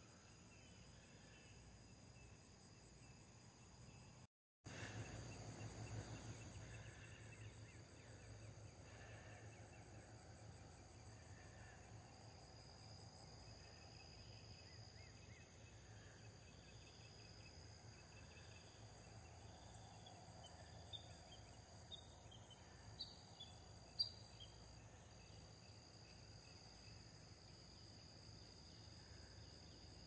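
Crickets trilling steadily in the background, a faint, high, finely pulsing chirr with a second steady insect tone joining partway through. A single sharp click stands out about three-quarters of the way in.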